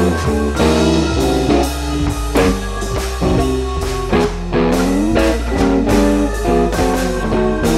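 Instrumental background music: a guitar playing a bluesy line over a held bass and drums.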